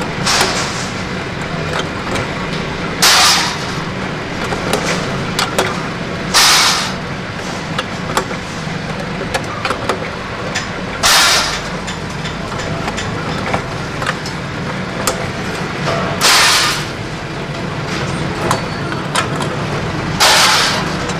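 Flywheel-driven mechanical power press running steadily while it cuts sheet steel into shovel blanks. Six loud, harsh bursts of about half a second come a few seconds apart as the press strokes shear the sheet, with small metallic clicks between them.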